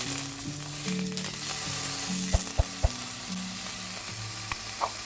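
Pork tenderloin searing in hot oil in a frying pan: a steady sizzle, with three brief knocks about two and a half seconds in.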